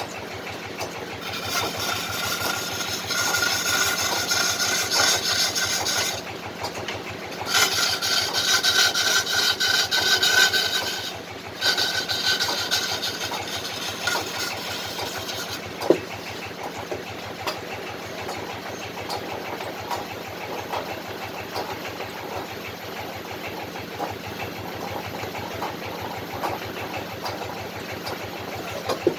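Wood lathe turning a kendang drum body of fruit-tree wood: a chisel cuts into the spinning wood in three loud scraping stretches in the first half, with a shrill ringing tone, then the lathe runs on without cutting.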